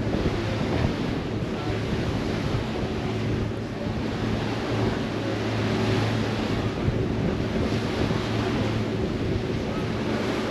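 Wind rushing over the microphone and water noise, with the steady low hum of the Staten Island Ferry's engines underneath.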